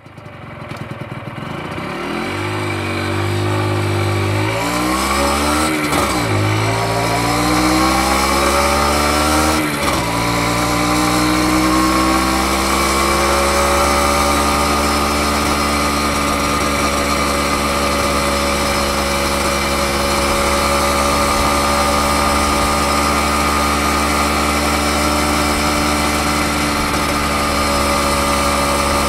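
Honda MB50's 49 cc single-cylinder two-stroke engine heard from the saddle, pulling away and accelerating: its pitch rises, drops at two upshifts about six and ten seconds in, then climbs gently and settles into a steady cruise.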